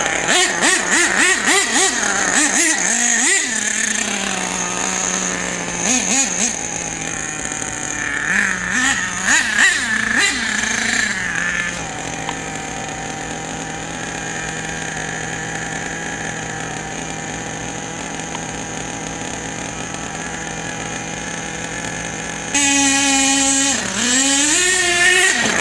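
HPI Savage X 4.6 nitro RC truck's small glow engine revving in quick blips for about twelve seconds, then idling steadily for about ten seconds, then revving high again near the end.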